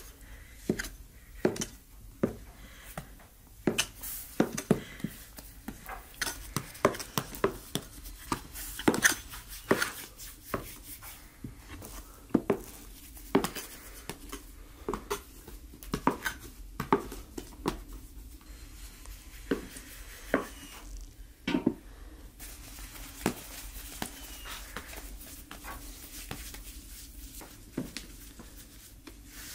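Irregular sharp taps and knocks of a metal dough scraper cutting bread dough against a floured wooden board, with the dough being handled and shaped into balls. The knocks come thick and fast at first and thin out over the last several seconds.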